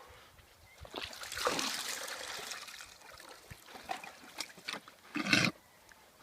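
Fluid gushing and splashing onto the bedding as a mare foals: a rushing splash about a second in that fades over the next two seconds, then scattered small knocks and a short, loud rustling splash near the end.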